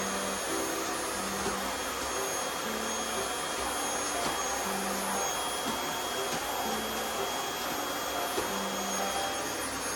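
Household vacuum cleaner running steadily: an even rushing noise with a thin high whine.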